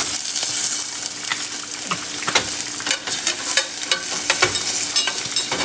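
Crushed garlic sizzling in hot cooking oil in a stainless steel saucepan, with irregular clicks and scrapes of a utensil stirring it against the pan.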